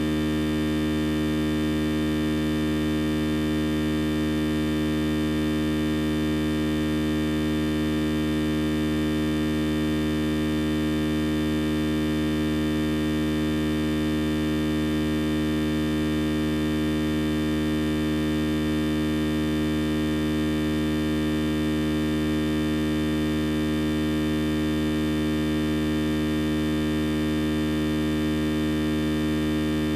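A steady electrical hum and buzz with many overtones, unchanging in pitch and level throughout: the kind a faulty audio line or ground loop puts on a recording.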